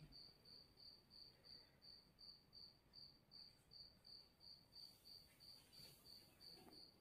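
Faint, high-pitched chirping that repeats evenly about three times a second.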